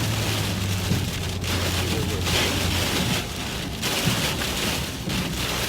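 Heavy rain hitting a car's windshield and roof, heard from inside the moving vehicle as a dense steady hiss over a low engine and road drone.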